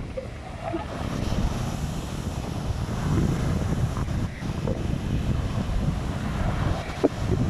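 Surf breaking and washing up a sandy beach, with gusting wind noise on the microphone.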